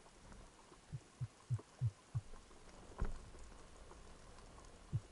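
Underwater recording: a run of five short, low thumps about three a second, then a single sharper knock, and a second run of thumps starting near the end.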